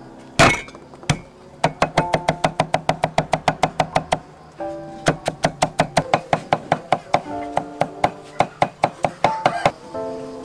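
A cleaver chopping red onion on a round wooden chopping block in quick, even strokes, about six or seven a second, in two runs with a short break between. A single heavy chop comes about half a second in. Background music plays under it.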